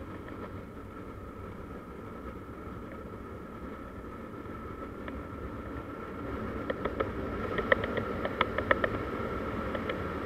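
Motor scooter riding along, a steady hum of engine and wind noise that grows louder past the middle. From about two-thirds of the way in, a run of sharp irregular ticks and rattles joins it.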